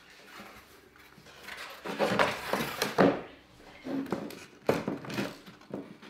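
Wooden boards and frame strips being handled and set down on a wooden workbench: a run of knocks and thuds starting about two seconds in.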